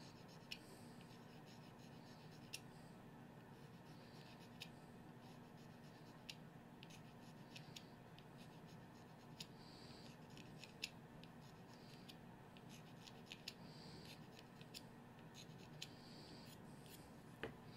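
Faint, light scraping of a reed knife on the cane of an oboe reed: soft short strokes with scattered small ticks.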